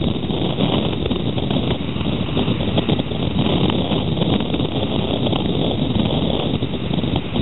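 Single-engine light aircraft taxiing at low power toward the microphone, its propeller engine a steady low drone under heavy wind rumble on the microphone.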